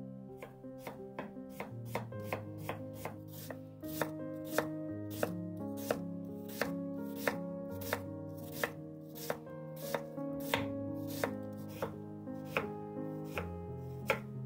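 Chef's knife slicing through red cabbage and knocking on a wooden cutting board, about two strokes a second at an even rhythm, over soft background music.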